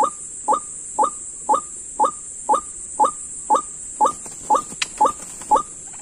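White-breasted waterhen calls repeated about twice a second in an unbroken even loop, each a short downward-sliding call: a trapper's lure call drawing waterhens to the snare. A steady high hiss runs underneath, and a few sharp clicks come near the end.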